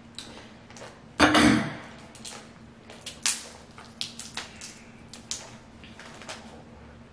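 Crab legs being snapped and their shells cracked by hand: a string of sharp, short cracks and clicks, with a louder, longer crackle about a second in.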